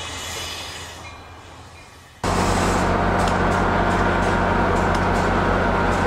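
Intro music fades out. About two seconds in, an abrupt cut brings the steady sound of an approaching CSX freight train's diesel locomotives, a loud hum that holds even.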